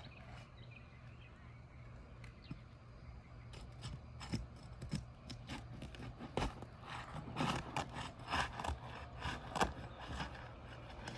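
Asphalt roof shingles being pried loose with a hand tool to break their seal: irregular scraping, rubbing and crackling clicks, growing busier about four seconds in.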